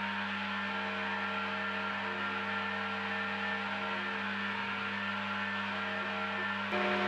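Vertical milling machine cutting a metal block under coolant spray: a steady hum with several ringing tones over a hiss, which shifts and gets a little louder near the end.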